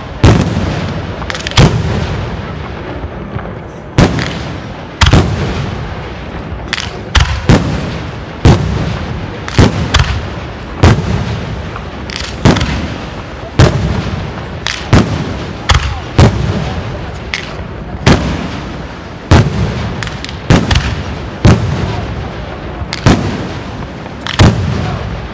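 Aerial firework shells bursting in quick succession, about twenty sharp booms at roughly one a second, each followed by a rumbling echo that fades into the next.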